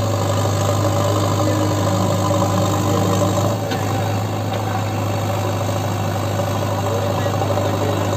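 JCB 3DX backhoe loader's diesel engine running steadily while the front loader bucket is lifted.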